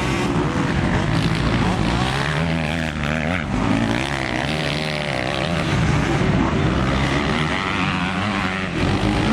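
Several motocross bikes' engines, revving up and down over one another as the bikes accelerate, shift and brake around the dirt track.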